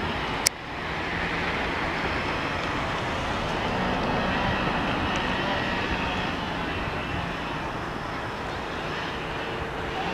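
Diesel locomotives hauling a passenger train, a steady engine drone that eases slightly as the train runs away. A sharp click about half a second in.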